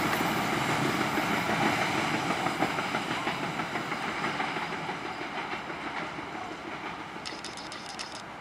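Passenger train coaches rolling away on curved track, their wheels running over the rails, fading steadily as the train recedes.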